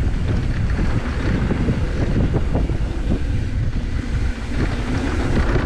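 Wind rushing over the microphone of a camera on a mountain bike descending a dirt trail, with many small knocks and rattles from the bike running over the rough ground.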